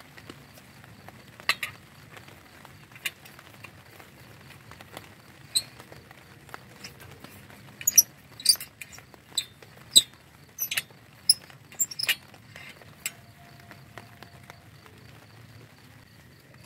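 Irregular sharp clicks and light taps, some with a bright ringing edge, clustering in a quick run in the middle, over a faint steady background.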